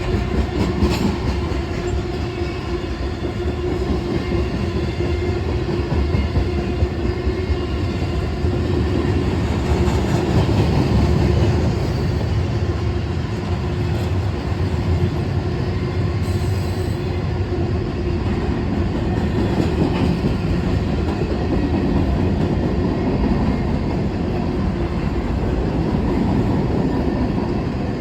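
Freight train cars rolling past close by: a steady, loud rumble of steel wheels on rail with occasional clacks.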